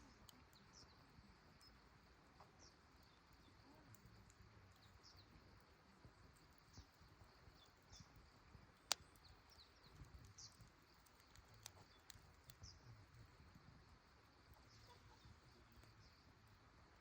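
Near-silent outdoor quiet with faint, scattered high bird chirps, and one sharp snap about nine seconds in.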